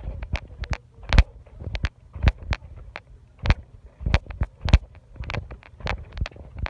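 Footsteps coming down steep steps or a trail: hard, uneven footfalls about two to three a second.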